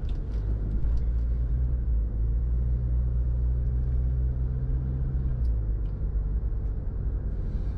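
Car driving along, with a steady low engine and road rumble. An engine tone holds steady, then falls away about five seconds in.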